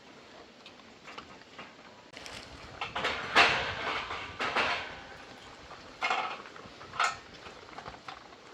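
Irregular knocking and clattering of hard objects being handled, loudest from about three to five seconds in, then two sharper knocks about a second apart.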